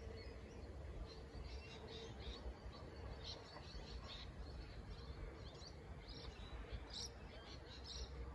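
Birds chirping in short, scattered calls, growing busier about halfway through, over a faint low rumble.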